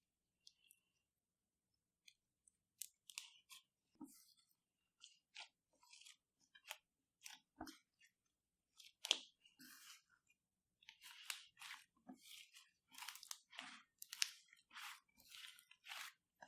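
Slime being squished and worked by hand, giving short crunchy crackles that come thicker in the second half.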